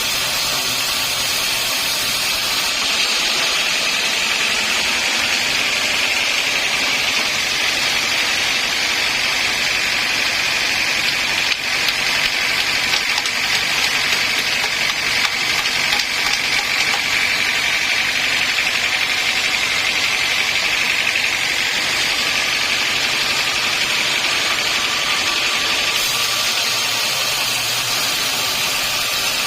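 Sawmill saw running steadily through a log, a continuous machine noise with a high whine.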